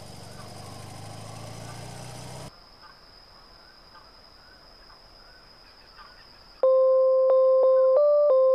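Cartoon car engines run steadily as the cars drive past, then cut off suddenly about two and a half seconds in. Quiet outdoor ambience with faint bird chirps follows. Near the end a loud, simple electronic melody of plain single notes starts.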